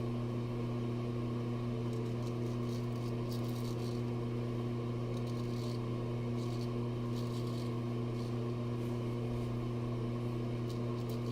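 Steady electrical hum, a low buzz with evenly spaced overtones, under a scattering of faint, short, high scrapes from a straight razor drawn over lathered stubble.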